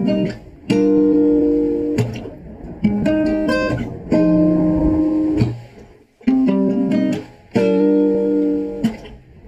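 Instrumental music sample of plucked chords, sounding in phrases of one to two and a half seconds with short breaks between them. It plays back through a denoiser plugin with the threshold turned up to strip out its background noise.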